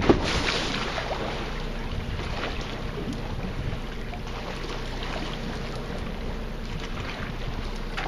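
Steady wind noise and low rumble on a boat deck, with one sharp knock right at the start and faint scattered ticks after it.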